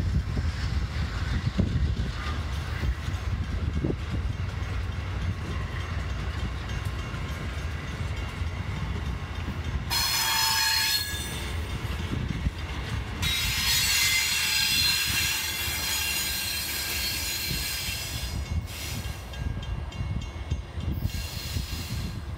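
Amtrak Downeaster passenger train rolling slowly by with a low rumble, as it slows to a stop. About ten seconds in its wheels give a brief high-pitched squeal, then a longer squeal of several seconds a little later.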